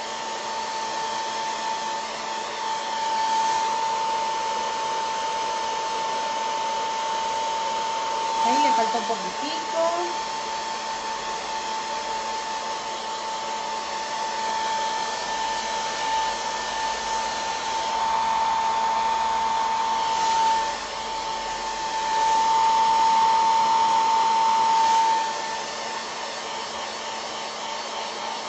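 Handheld hair dryer blowing steadily with a high whine, drying a coat of crackle medium on a ceramic piece. It gets louder twice in the second half, for a few seconds each time, as the nozzle comes closer.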